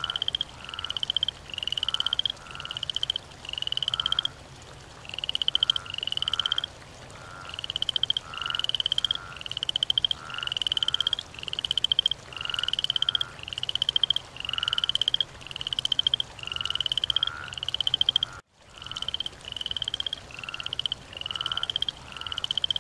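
Frog calls: short rattling calls, each a quick run of pulses that grows louder and rises slightly in pitch, repeated about every half second with a few brief pauses, over a faint steady low hum. The sound cuts out completely for a moment about eighteen seconds in.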